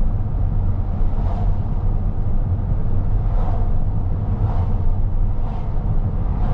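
Road noise inside a moving car: a steady low rumble of tyres and engine with an even hiss of air over it.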